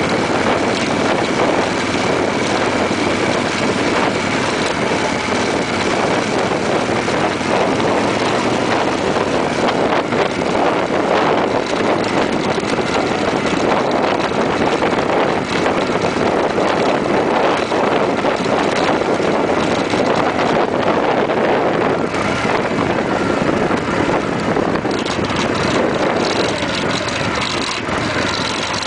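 Steady rush of engine and wind noise from a vehicle riding along a road at speed, easing off slightly near the end as it slows.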